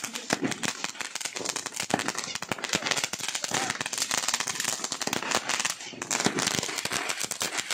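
Firecrackers going off in a rapid, continuous run of sharp, irregular pops and crackles, with voices of a group of people.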